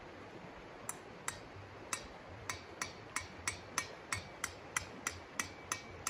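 Metal tent stake being hammered in with a mallet: a run of sharp knocks with a metallic ring, starting about a second in and quickening to about three a second.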